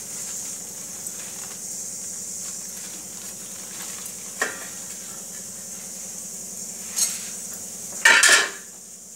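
Steady hiss from a gas burner heating oil in an aluminium kadhai, over a low hum. A light click comes about four seconds in and another at seven, then a louder short clatter about eight seconds in.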